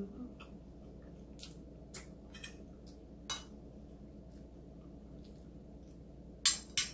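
Close-up eating sounds: chewing and mouth clicks, with a metal spoon clinking and scraping on a plate of rice. Two sharp clicks come close together near the end.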